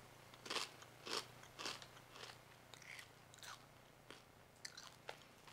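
Someone chewing a crunchy brown rice cracker, sea salt and pepper flavour: dry crackly crunches about twice a second, loudest at first and growing fainter as the cracker breaks down.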